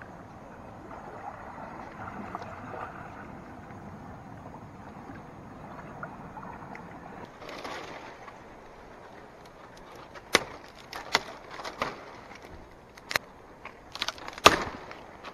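Dead dry branches snapped by hand, about six sharp cracks spread over the second half. Before them there is a steady soft rush.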